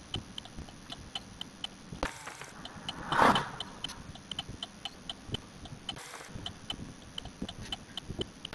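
Stopped car idling with its flasher relay ticking steadily and quickly, the typical clicking of hazard lights or a turn signal left on. A short, louder rush of noise comes about three seconds in.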